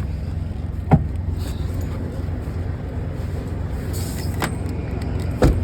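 Steady low hum of an idling diesel truck engine, with three sharp knocks, the first about a second in and two more near the end.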